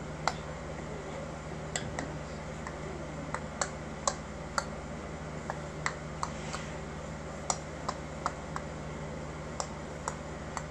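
Scattered sharp clicks and taps at irregular intervals, some louder than others, over a steady low hum.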